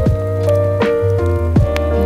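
Music with a steady drum beat, about one hit every three-quarters of a second, over a held bass line and sustained melody notes.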